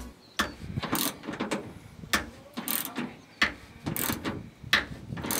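Socket ratchet wrench clicking in repeated strokes, about two a second, as it cranks a bolt down to collapse a rivet nut against the sheet metal.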